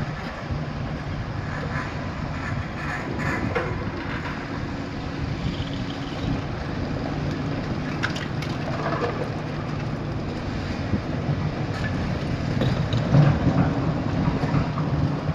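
Heavy machinery running steadily at a low, even pitch, with a few sharp knocks over it.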